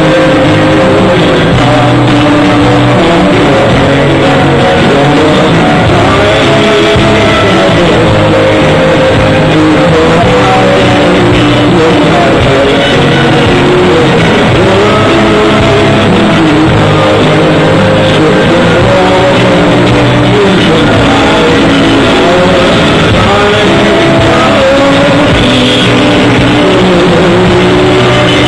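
Loud rock song with a sung vocal melody, played without a break.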